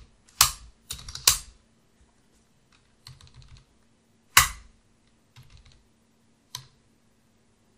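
Typing on a computer keyboard: short bursts of quick keystrokes with pauses between, and a few much louder, sharper key strikes.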